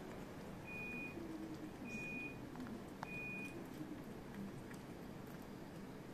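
A vehicle's reversing alarm beeping: single high-pitched beeps about a second apart, three of them, stopping after the third, about three and a half seconds in. Under it there is a low, steady background rumble.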